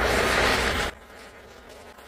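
Handheld gas torch flame blowing steadily against carved cedar wood. It cuts off sharply about a second in, leaving a faint crackle.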